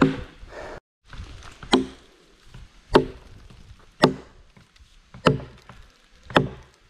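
Axe chopping into a fallen log: five strikes about a second apart, each with a brief ringing tone. A single knock of wood on wood right at the start.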